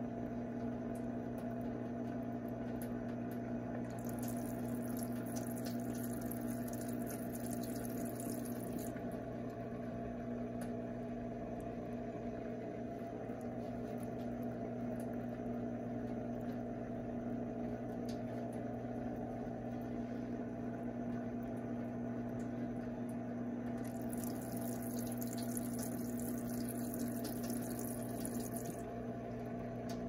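Brastemp Eggo mini washing machine running with a steady electric motor hum between rinses, with two spells of hissing water spray, about four seconds in and again near the end.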